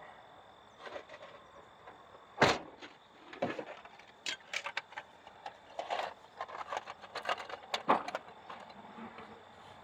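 Scattered knocks and light metallic clinks of engine parts and hand tools being handled during reassembly, with one sharp knock about two and a half seconds in.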